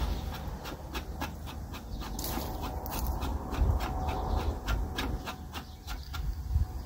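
Irregular light clicks and handling noise, a few per second, from a bulb planter's tube and parts being fitted together by hand.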